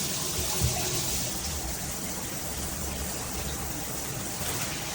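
Water spraying steadily from a handheld shower head, with one brief knock about two-thirds of a second in.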